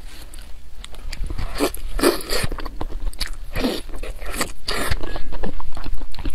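Close-miked eating sounds: spicy noodles and a large sauced piece of meat being bitten and chewed in irregular wet bursts, with chopsticks scraping against the metal bowl.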